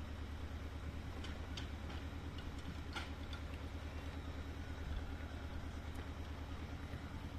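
An engine runs steadily at a low, even pulse, with a few sharp knocks about a second in and again around three seconds in.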